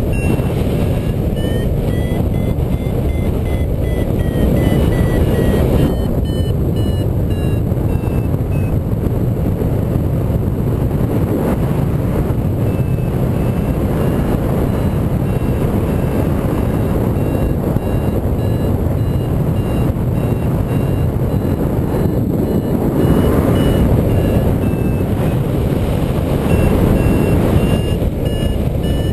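Paragliding variometer beeping its climb tone, a quick train of beeps whose pitch slowly rises and falls with the strength of the lift, the sign that the glider is climbing. Loud wind rushes over the microphone underneath.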